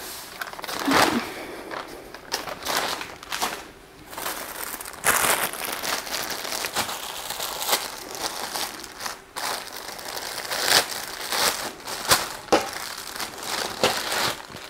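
Packaging crinkling and rustling in irregular bursts as clothing is pulled from a box and unpacked.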